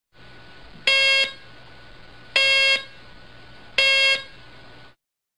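Morse code tone: three evenly spaced, buzzy beeps of equal length, about a second and a half apart, over a steady background hiss with a low hum.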